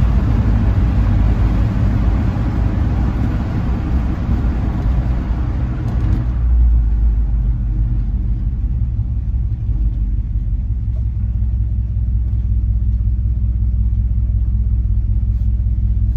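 The Ford 351M V8 of a 1978 F100 pickup, with a single 3-inch pipe and Magnaflow muffler, heard from inside the cab while driving, with road and wind noise. About six seconds in, the road and wind noise falls away as the truck slows, leaving the steady low rumble of the V8 at low revs.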